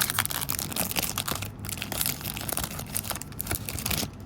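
Crinkling and tearing of a trading-card pack wrapper being torn open and handled, a dense run of irregular crackles that stops about four seconds in.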